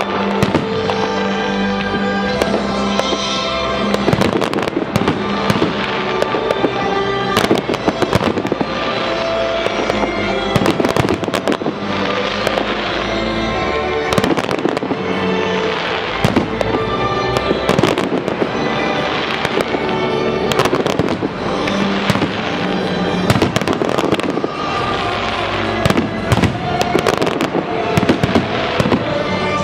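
Professional aerial firework shells bursting in quick succession, many bangs and crackles overlapping, over music playing along with the show.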